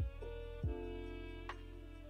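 Background music: held instrumental notes over a steady low bass, with a deep drum thump about half a second in.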